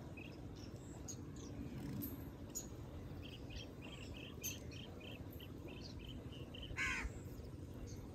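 Birds calling: a run of short high chirps, about three a second, for a few seconds, then one louder, rougher call about seven seconds in, over a low steady background.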